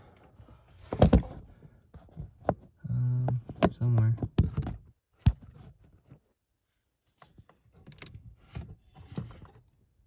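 Scattered handling knocks and clicks, the loudest about a second in, from a phone being moved around and bumping parts under a truck's dash. A short spoken word comes in the middle.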